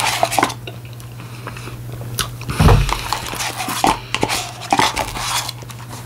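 Close-up eating sounds of a mini Blizzard soft-serve with candy mix-ins: a spoon clicking and scraping in the cup, with biting and chewing, over a steady low hum. A low thump about two and a half seconds in is the loudest sound.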